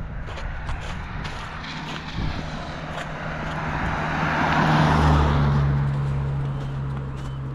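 A motor vehicle passing by: its engine and tyre noise swell to a peak about five seconds in and then fade, with the engine hum dropping slightly in pitch as it goes past. Footsteps tick underneath throughout.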